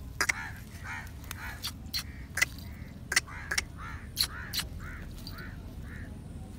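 Myna held in a shikra's talons giving short repeated distress calls, about three a second, with sharp clicks among them; the calls thin out and slow near the end.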